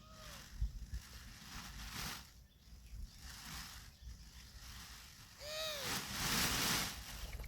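Peafowl calling: a faint short call at the start and a louder one about five and a half seconds in, each rising and falling in pitch. A loud rush of noise follows the second call, and softer swells of noise come and go in between.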